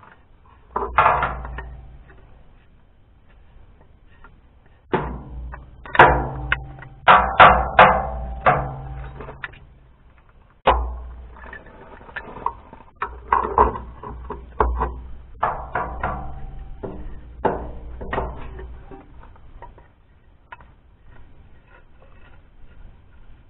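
Metal clanking and knocking in irregular bursts, some strokes ringing briefly: wrench and steel hydraulic fittings being worked while a leaky hydraulic coupler on a tractor is changed. The clanks come in clusters about a second in and through the middle, thinning out near the end.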